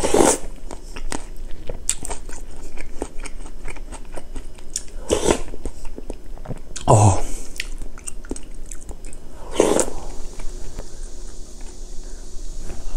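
Close-miked mouth sounds of a man chewing and crunching a Korean home-cooked meal of kimchi, rice and spicy stir-fried pork. Steady small clicks of chewing run through, with a few louder bites a few seconds apart.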